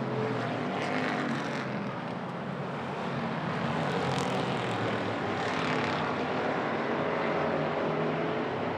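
A pack of hobby stock race cars running at speed around an oval track, their engines blending into a continuous drone that swells briefly a few times as cars go by.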